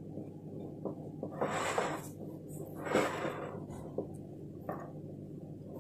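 A metal spoon spreading sauce over a thin popiah wrapper on a plate: two soft scraping strokes about a second and a half apart, with a few light clicks of spoon on plate, over a low steady hum.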